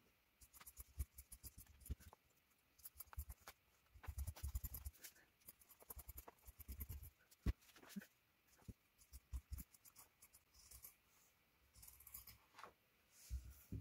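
Fabric scissors snipping through quilted fabric, faint, in irregular runs of quick snips with short pauses between them.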